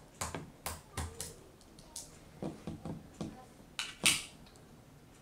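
A run of light clicks and taps of hard parts being handled while fitting a laptop LCD screen, about a dozen in the first four seconds, the loudest a sharp click just after four seconds in.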